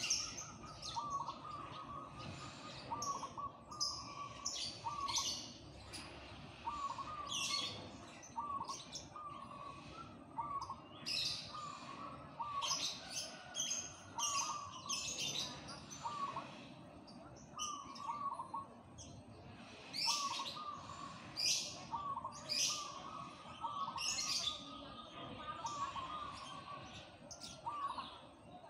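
Zebra dove (perkutut) cooing repeatedly in its song, short notes in quick little clusters, over and over. Other small birds chirp sharply and high over it throughout.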